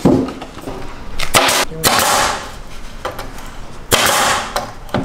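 A few sharp wooden knocks with scraping between them as a plywood cabinet is pushed and knocked into place in a pickup bed for a dry fit.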